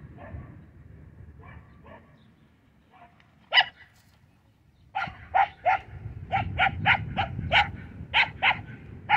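Young Australian cattle dog/border collie mix barking while herding livestock. A few faint barks at first, one loud sharp bark a few seconds in, then a quick run of about ten barks over the last four seconds.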